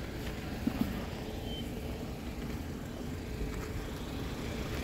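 Delivery van's engine idling steadily, a low rumble with a faint steady hum, left running unattended. Two short clicks sound about a second in.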